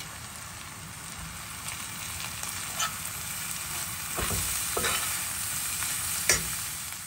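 Grated carrot and onion sizzling as they fry in oil in a stainless steel pan. In the second half a metal spoon stirs the vegetables, scraping and clinking against the pan a few times, the sharpest clink near the end.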